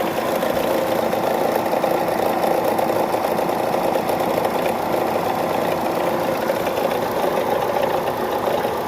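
Chevrolet car engine idling steadily with a fast, even ticking clatter: the engine noise that is the complaint.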